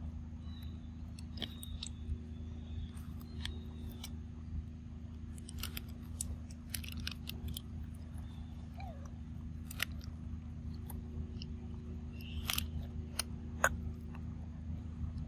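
Young macaques biting into and chewing ripe mango flesh: irregular short clicks of bites and chewing, the sharpest near the end, over a steady low hum.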